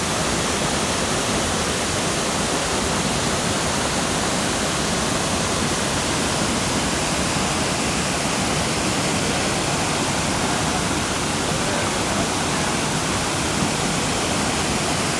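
Waterfall: falling water making a steady, even rush.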